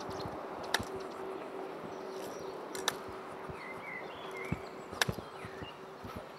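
Outdoor park ambience: a steady rushing noise with short bird chirps in the middle, a few sharp clicks and scattered soft thumps.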